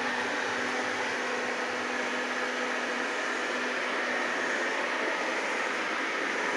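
360 C50 robot vacuum cleaner running, a steady whirring hiss from its suction motor and brushes; a low hum within it fades out about halfway through.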